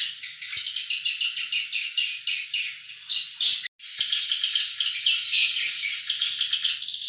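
Dense, unbroken high twittering of swiftlet calls, with many overlapping chirps, cutting out abruptly for a split second just under four seconds in.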